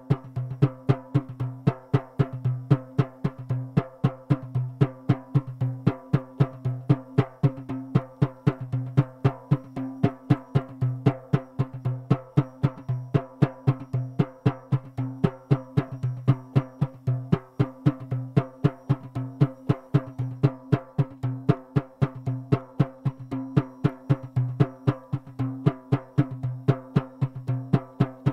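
Percussion-driven music: drum strikes at a steady pace of about four a second over a held low tone.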